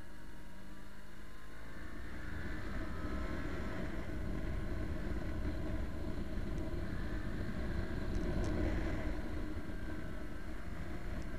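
Motorcycle engine running on the move, its note rising and falling with the throttle, under a heavy rush of wind and road noise.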